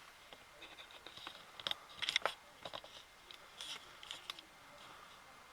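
Faint, scattered clicks and light taps from hands handling things at close range, a few at a time, some in quick pairs and clusters.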